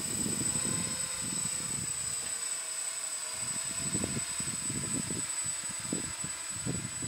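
Hexacopter's electric motors and propellers droning steadily in flight, with a thin high whine, while gusts of wind rumble unevenly on the microphone.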